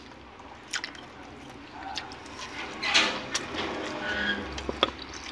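Wet mouth sounds of a person eating rice and saucy chicken adobo with the fingers: scattered smacks and clicks, with a louder burst about three seconds in as a handful goes into the mouth.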